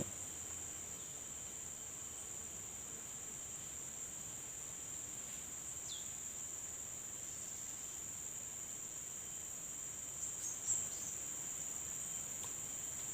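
Insect chorus holding one steady, high-pitched drone, with a few faint short chirps about six seconds in and again near ten seconds.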